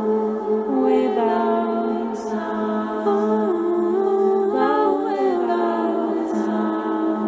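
Music for a dance routine: layered, choir-like voices holding notes over a steady low drone, the notes stepping from one chord to the next. About five seconds in, several voices slide in pitch.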